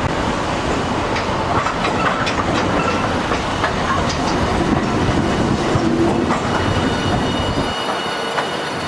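Hiroshima Electric Railway Green Mover LEX low-floor tram rolling past at close range. Its wheels click irregularly over rail joints and points, with a faint wheel squeal on the rails.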